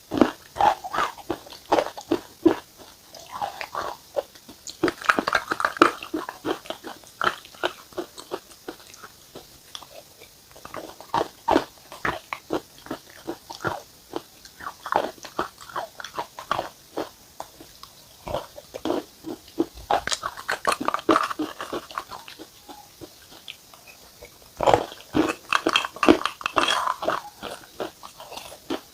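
Dry, brittle material crunching up close, in bursts of rapid crackling crunches separated by short pauses.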